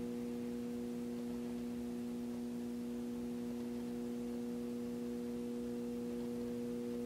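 A steady, unchanging hum made up of a few constant tones.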